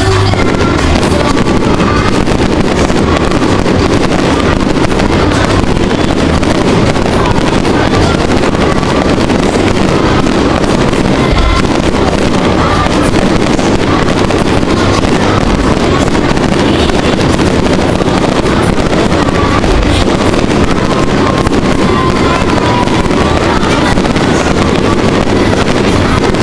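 Fireworks going off in a dense, continuous barrage: a loud, unbroken rumble and crackle with no gaps between the bursts.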